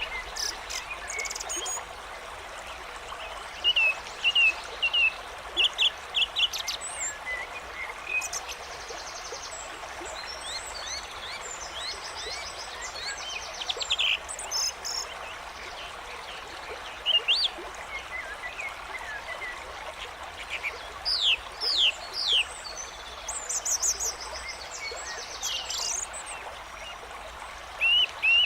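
Nature sound-effects recording: several songbirds chirping and trilling over the steady rush of a running stream. Quick runs of repeated chirps come several times, loudest about four to seven seconds in, around twenty-one to twenty-three seconds in, and at the very end.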